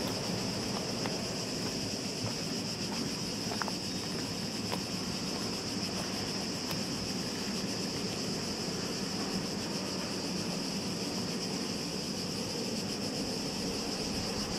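Cicadas chirring steadily, with the low rumble of a distant freight train underneath.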